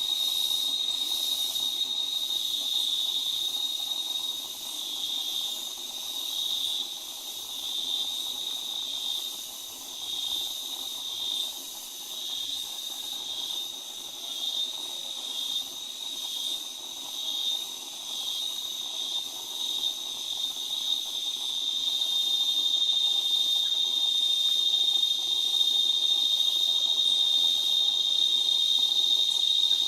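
Insects making a continuous high-pitched drone. It pulses about once a second through the middle, then settles into a steady, louder buzz for the last third.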